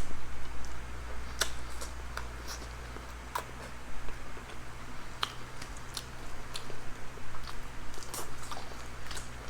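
Close-miked eating: people chewing and biting into chicken tinola and fried pompano, with scattered short wet clicks and smacks. A steady low hum runs underneath.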